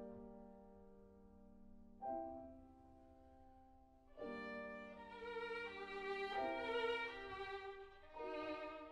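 Bowed violin music: slow held notes at first, then a quicker, louder passage from about halfway through.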